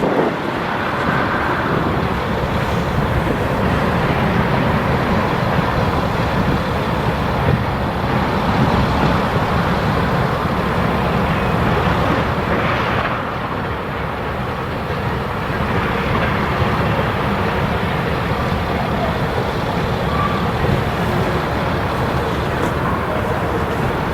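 Freight train rolling past, with a steady rumble of wheels on the rails.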